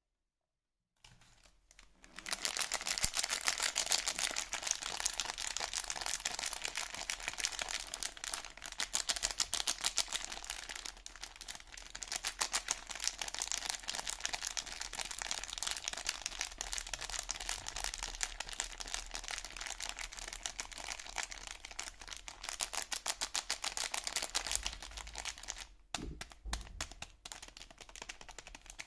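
Soap packaging crinkling and crackling with a dense run of fine clicks as it is handled and unwrapped. It starts about two seconds in and eases off near the end.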